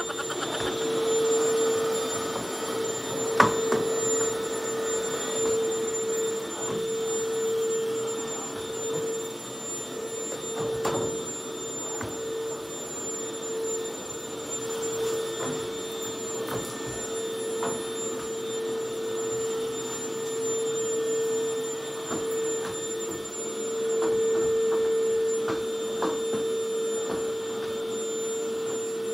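Backpack vacuum cleaner running steadily with a constant hum, with occasional short knocks; the sharpest knock comes about three and a half seconds in.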